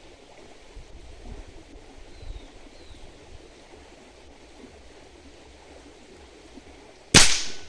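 One shot from a .22 Caçadora+ PCP air rifle firing a 36-grain slug: a single sharp, loud report near the end, after a few seconds of faint outdoor background noise.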